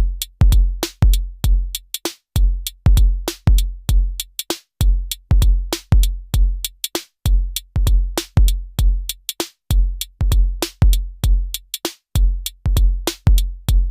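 Elektron Syntakt drum machine playing a looping electronic drum pattern: deep synthesized kick drums under short, bright, clicky percussion hits and a short pitched tom-like tone. The pattern repeats about every two and a half seconds.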